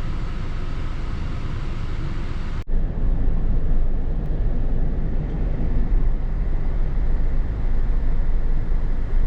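Car driving, a steady rumble of road and engine noise. About a third of the way in, a sudden break leads into a louder, duller stretch of the same rumble.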